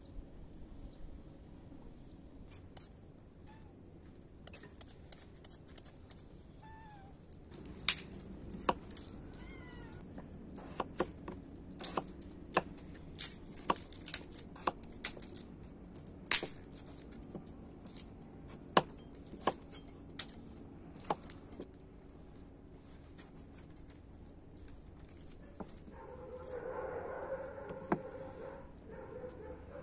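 A kitchen knife cutting peeled potatoes on a wooden chopping board: irregular sharp knocks as the blade goes through and strikes the board, from about eight seconds in until about twenty-one seconds. Near the end a cat meows once, briefly.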